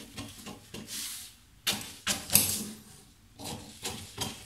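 Large tailor's shears snipping through a paper sewing pattern: a series of irregular crisp cuts, with paper rustling as the sheet is handled, the loudest snips about two seconds in.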